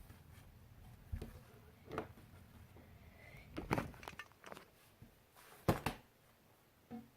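Faint, scattered knocks and clicks, about five of them, the loudest a little past the middle.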